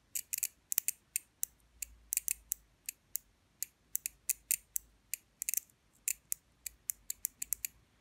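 Opened 12-volt Schrack T7NS5h1 PCB relay snapping its armature and contacts in and out as its coil is switched on and off from a battery, in a rapid irregular series of sharp clicks. The clicking shows that this relay's coil and switch work.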